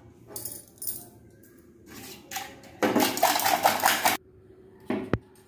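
Eggs being beaten with a whisk in a stainless steel tumbler: quick, rhythmic metallic clattering against the tumbler's sides, coming in short bursts with the longest and loudest about three seconds in. A single sharp clink near the end.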